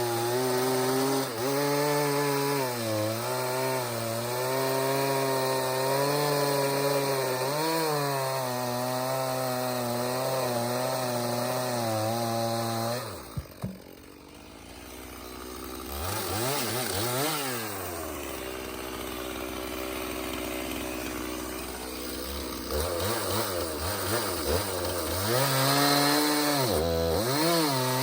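Stihl MS 391 two-stroke chainsaw cutting red oak, its pitch dipping and recovering under load for about the first half. It then drops off the throttle, blips once, and idles low. After that it revs back up and bites into the wood again near the end.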